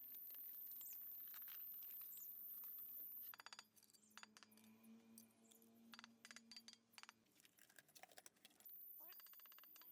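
Near silence with scattered faint clicks and light clinks, as of small hard objects being handled.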